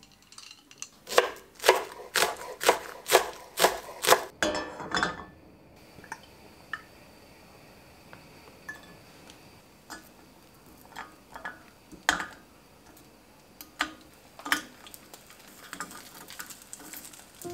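Gas stove igniter clicking sharply about twice a second, seven times, then a brief rush as the burner catches. After that come scattered light taps and clinks as frozen pot stickers are set one by one into a ceramic nonstick frying pan.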